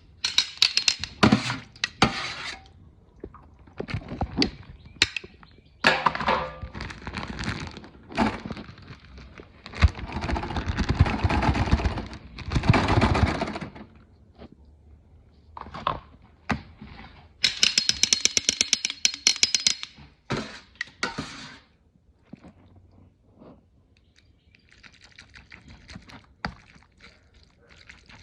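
Kitchen handling sounds: a string of knocks and clatters, with a few seconds of rushing noise near the middle and a fast rattle a little later.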